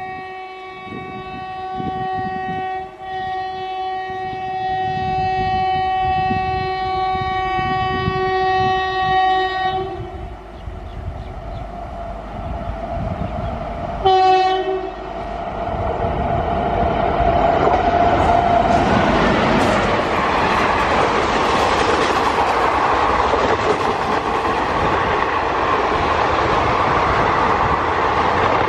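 WAP-7 electric locomotive sounding its horn in a long blast of about ten seconds, then a short blast a few seconds later. After that comes the loud rush and wheel clatter of its passenger coaches passing at speed, building and holding to the end.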